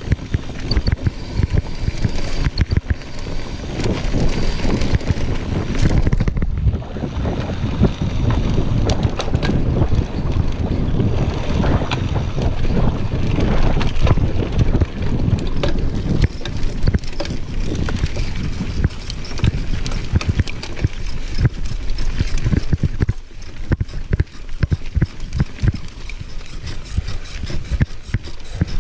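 Wind buffeting the microphone of a mountain bike moving fast down a dirt singletrack, with tyres running over dirt and the bike rattling and clicking over bumps.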